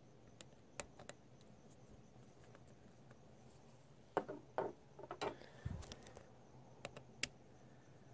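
Faint, scattered light clicks and taps of a screwdriver and small carburetor parts being handled, with a short flurry of handling noises about four seconds in and a dull thump just before six seconds.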